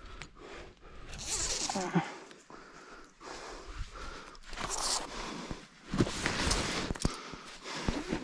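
A climber breathing hard in bursts, with scrapes, rustles and a few sharp clicks and knocks of gear against rock.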